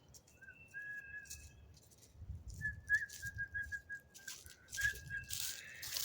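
High, thin whistled notes: long held tones at first, then a quick warbling run of short pulses. Rustling or scuffing noise comes in near the end.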